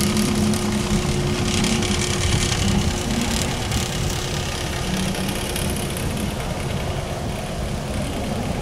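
An engine running steadily, with a constant low hum and a wash of noise over it.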